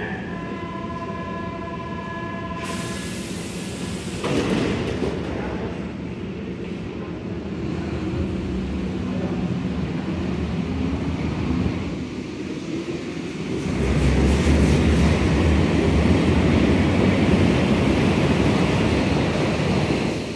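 Berlin U-Bahn train at the platform: a steady warning tone sounds while the doors are open, then a hiss and a clunk as the doors shut about four seconds in. The train pulls out with its motors rising, and from about two-thirds of the way through a loud deep rumble follows as it accelerates away into the tunnel.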